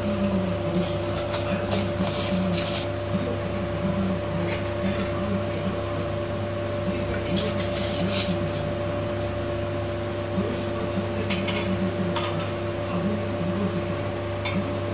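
Pot of vegetable khichdi bubbling at a boil, with a spoon scraping against the aluminium pot in the first few seconds and raw rice grains pouring into the boiling liquid about halfway through. A steady hum runs underneath.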